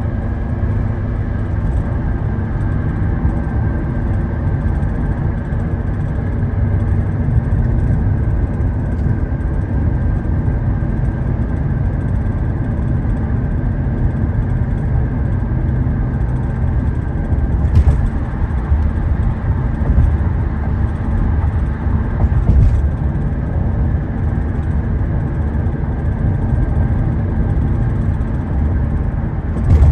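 Car driving along: a steady low road and engine rumble with a faint steady whine, broken by a few sharp knocks or bumps past the middle and near the end.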